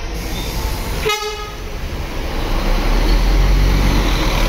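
Mercedes-Benz coach bus pulling away and passing close, a short horn toot about a second in, then its engine rumble growing louder as it comes alongside near the end.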